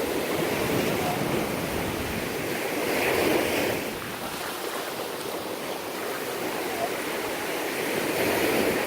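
Surf washing onto the shore, swelling louder about three seconds in and again near the end, with wind buffeting the microphone.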